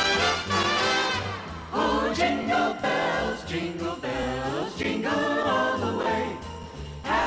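Christmas-style music for a stage dance number: jingle bells ringing over a band, with a regular beat in the bass and a choir-like melody.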